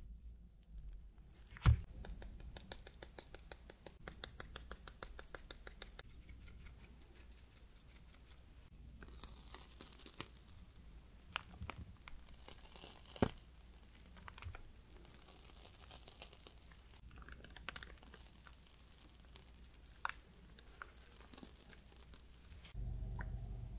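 Plastic piping bag crinkling and squishing as cream is squeezed out into choux puffs, faint. There is a sharp knock about two seconds in and a run of fast, even ticks just after it.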